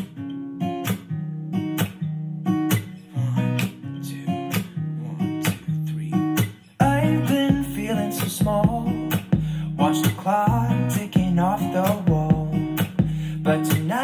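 A strummed acoustic-guitar pop song played back through a Sonos Play:3 wireless speaker and recorded in the room with binaural microphones. A deeper bass and beat come in about seven seconds in.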